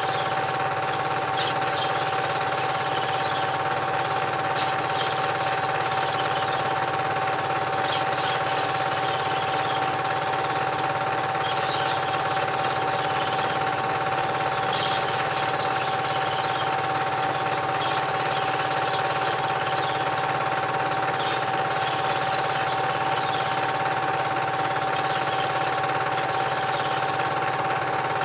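Cine film projector running: a steady mechanical whirr with a constant hum, unchanged throughout.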